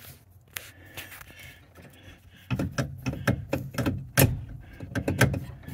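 Irregular clicks, taps and knocks of hands working metal parts at the base of the steering column. A few isolated clicks at first, then a busier run of knocks from about halfway through.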